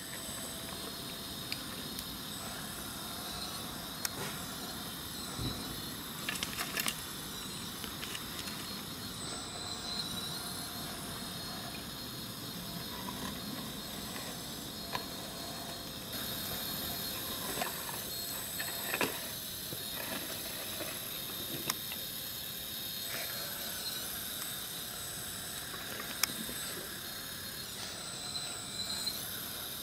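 Electric-driven hydraulic pump of a scale RC CAT excavator running with a steady hiss and high whine, its load stepping up and down a couple of times as the valves work the arm. Scattered clicks and scrapes come from the bucket digging into hard dirt and gravel.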